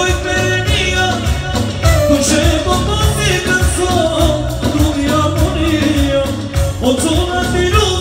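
Live Albanian çiftetel dance music, loud and amplified: a man singing into a microphone, with a clarinet, over a steady pulsing beat.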